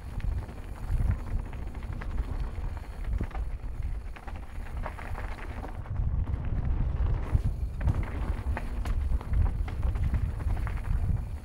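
Mountain bike riding fast down a dirt trail. Wind rushes over the microphone in a steady low rumble, and the tyres and bike rattle and click over the bumpy ground.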